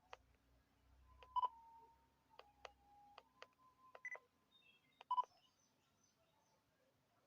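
Nikon D3500/D5600 camera beeping: two short double beeps, about a second and a half in and again near five seconds, and a single higher beep just after four seconds. Faint sharp clicks run between them.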